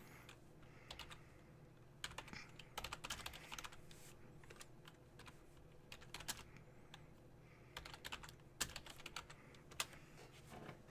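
Typing on a computer keyboard: short runs of key clicks with pauses between them.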